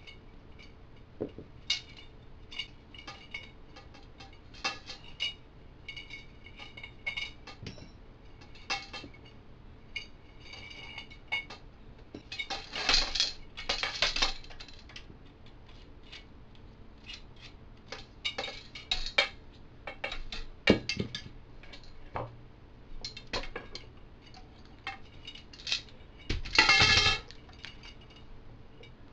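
Steel bicycle spokes clicking and clinking with a short metallic ring as they are worked loose and pulled out of an e-bike hub motor wheel. There are louder rattling clatters, and near the end a loud clatter with a low thud as the bare hub motor comes free of the rim.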